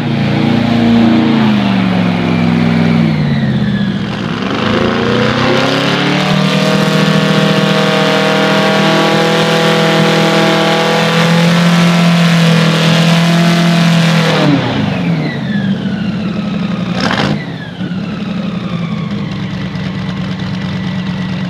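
Airboat's Whipple-supercharged big-block V8, swinging a four-blade propeller through a 2:1 reduction, being run up: the revs dip, then climb and are held high for about eight seconds before being cut back sharply, with a high whine falling away as it slows. A single sharp crack follows a couple of seconds later, and the engine settles to a steady idle.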